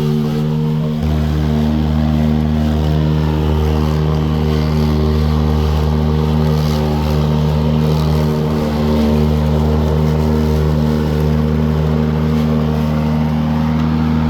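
Toro 60V Flex-Force cordless mower running steadily, its electric motor and high-lift bagging blade cutting grass and blowing the clippings into the bag, with a lower hum joining about a second in. Airflow is strong and the bag is not plugging.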